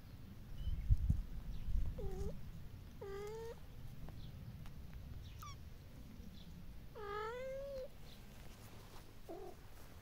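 Cat meowing: three short, pitched meows, the third one longest at about seven seconds in, with a couple of fainter short squeaks between them. A few low muffled thumps come in the first couple of seconds.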